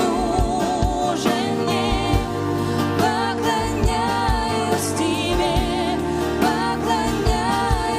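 A Christian worship song performed by a band: a singer's voice with vibrato over sustained chords, bass and a drum beat.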